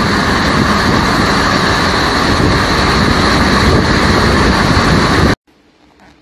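Heavy rainstorm: a loud, steady rush of pouring rain and wind, with wind buffeting the microphone. It cuts off abruptly about five seconds in, leaving only a faint background.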